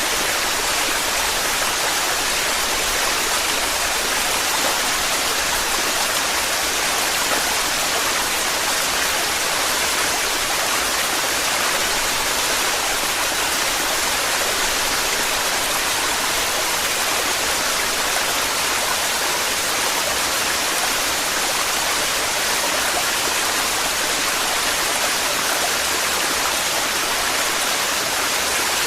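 Torrential waterfall: a steady, unbroken rush of falling water.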